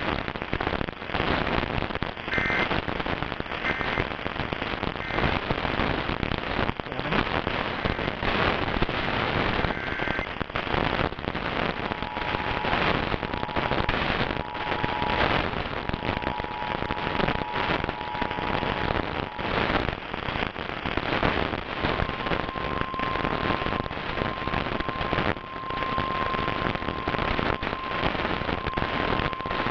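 Heavy crackling static from a weather radio receiver, with faint alert tones under it. Three short high data chirps come a few seconds in, and a two-tone Emergency Alert System attention signal comes about twelve seconds in, broken once. A single steady alert tone follows for the last several seconds.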